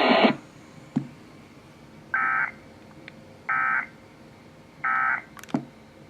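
Emergency Alert System end-of-message signal: three short bursts of digital data tones, about a second apart, closing the warning broadcast. A couple of brief clicks come before and after the bursts.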